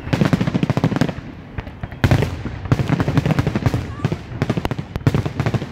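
Aerial fireworks shells bursting in rapid volleys of bangs and crackles, with a fresh loud barrage starting about two seconds in.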